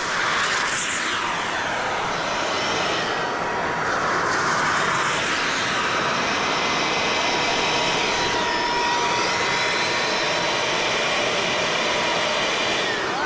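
Model jet turbines running: a steady rushing jet noise with a high whine. The whine slides down in pitch about a second in and again around eight to nine seconds.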